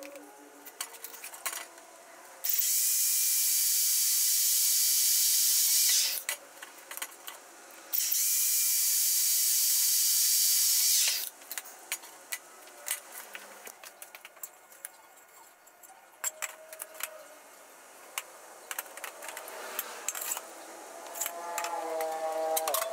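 Two long hisses of spray, each about three and a half seconds, with light clicks and rattles before, between and after.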